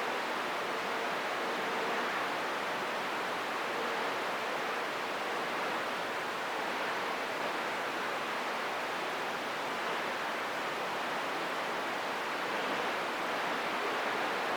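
CB radio receiver hissing with steady static on an open channel, with a faint thin tone fading in and out under the noise.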